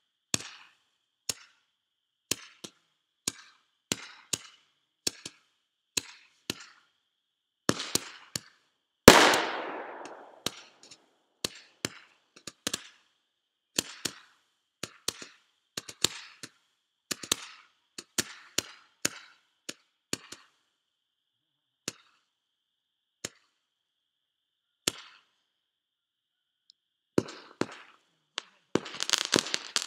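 Small fireworks going off: a run of sharp pops at irregular intervals, one or two a second, with one much louder bang about nine seconds in that rings out and fades. Near the end the pops give way to a dense crackling burst.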